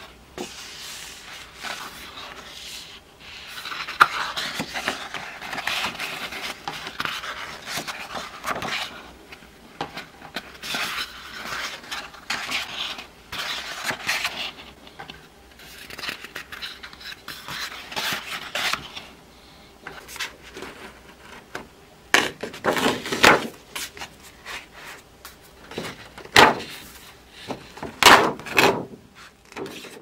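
Pages of a large paper wall calendar being leafed through and turned by hand: paper rustling and sliding, with several sharper, louder flaps of the sheets near the end.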